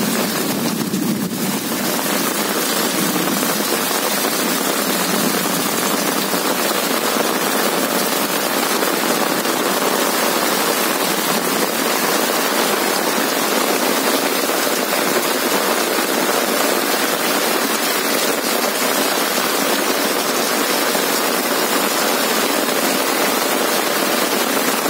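Heavy rain pouring steadily onto a flooded lane, the drops splashing into standing water in a dense, unbroken hiss.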